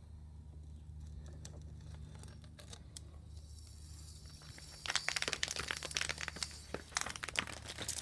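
A low steady hum, then from about five seconds in a dense run of crackling, crinkling rustles: handling noise from the recording phone as it is swung and carried.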